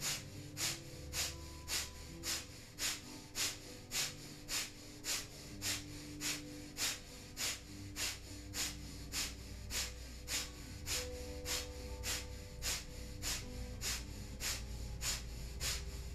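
Breath of fire: sharp, even nasal breaths in a steady rhythm, just under two a second. Faint sustained tones sound underneath.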